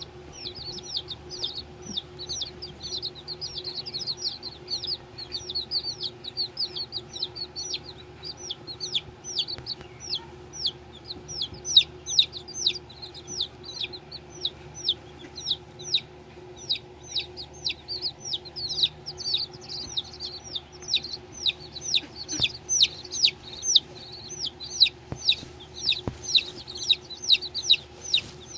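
Baby chicks peeping nonstop: a rapid stream of short, high, downward-falling peeps, several a second, over a steady low hum.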